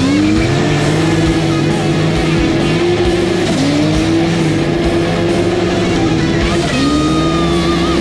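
Rock music with guitar laid over the footage. Under it, a turbocharged snowmobile engine is running hard, climbing to steady revs, easing off briefly twice and climbing back.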